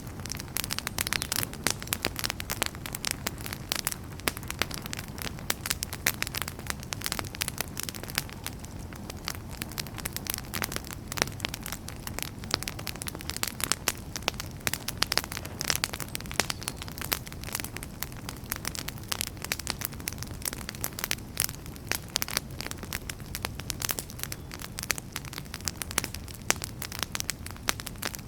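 Wood fire burning in a fireplace, logs crackling and popping with many irregular sharp snaps over a steady low rumble of flame.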